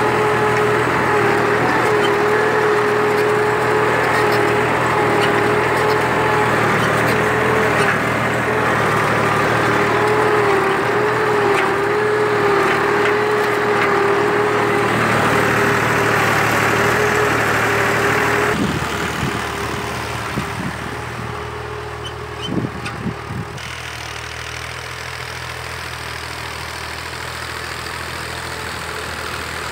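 New Holland Al-Ghazi 65 hp diesel tractor engine running steadily under load, pulling an 11-tine cultivator, with a steady whining tone over the engine note. The sound drops suddenly in level about two-thirds of the way through, and a few knocks follow.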